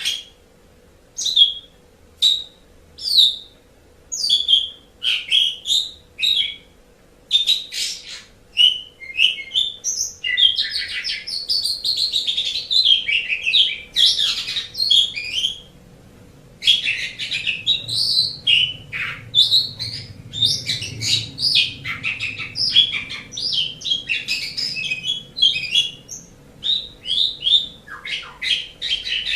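Javan pied starling (jalak suren) singing. It starts with a few separate sharp calls, then runs into a long, varied stream of rapid whistles and chattering notes, with a short break about halfway through.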